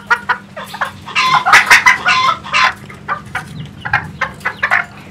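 Battery-operated toy chicken playing recorded clucking: a quick run of short clucks, louder and busier for a stretch about a second in.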